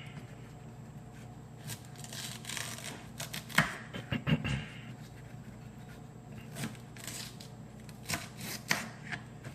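Knife cutting celery stalks on a cutting board: scattered knocks and crisp cuts at an irregular pace, the sharpest a few between three and a half and four and a half seconds in.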